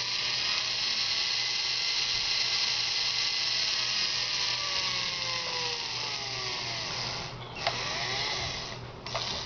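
Small brushed RC car motor, driven by a brushed ESC dried out after water damage, spinning at high RPM with a drill-like whine. Its pitch falls slowly; near the end it drops out briefly, spins up once more and stops.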